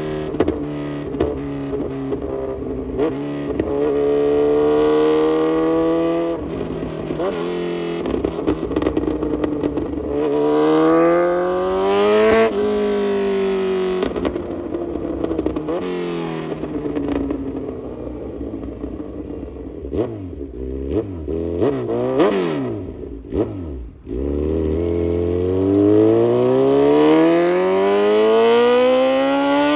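Kawasaki Z900's inline-four running through an aftermarket full exhaust, accelerating hard with the pitch climbing in long pulls and falling back between them, with scattered sharp pops. About twenty seconds in come several quick throttle blips, then the revs dip and build again in one long pull near the end.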